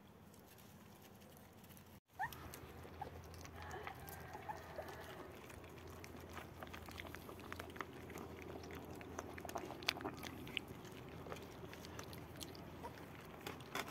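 Puppies eating: scattered small clicks and smacks of chewing and nosing at food, with a few faint squeaky whines. The first two seconds hold only a low steady hum before the sounds begin.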